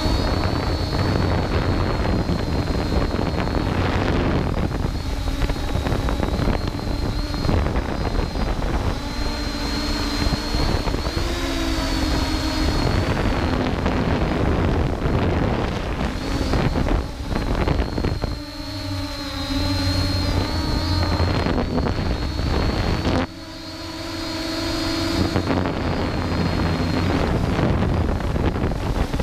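Ehang Ghost quadcopter's electric motors and propellers heard from its own onboard camera: a steady buzzing whine whose pitch rises and falls with the throttle, with wind rumbling on the microphone. The sound drops twice in the second half, sharply once, then climbs back.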